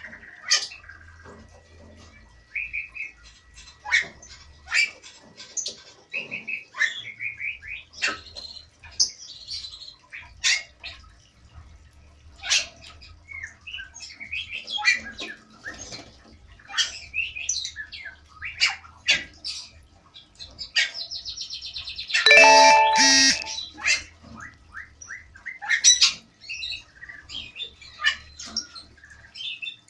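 Caged Bali starlings and lovebirds chirping, whistling and squawking in a breeding aviary, with short calls one after another. About two-thirds of the way through comes one loud, harsh squawk lasting about a second and a half.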